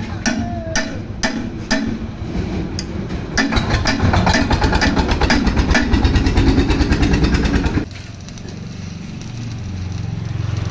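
An engine running with regular knocking pulses that speed up and grow louder a few seconds in, then cut off abruptly about eight seconds in, leaving a low steady hum.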